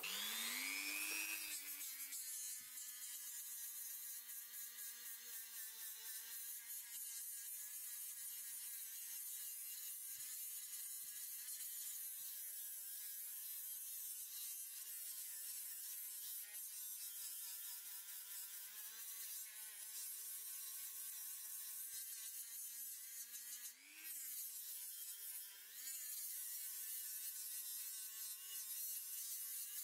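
Handheld rotary tool with a sanding drum spinning up, then running with a steady high whine as it sands a wooden knife handle. Its pitch briefly rises twice near the end.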